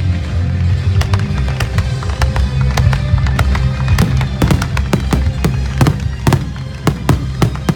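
Fireworks bursting in quick, irregular bangs over loud music with a heavy bass. The bangs come thicker and faster about halfway through.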